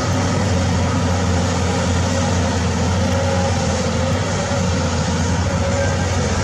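Caterpillar crawler bulldozer's diesel engine running steadily under load as the machine pushes a bladeful of earth: an even, low drone.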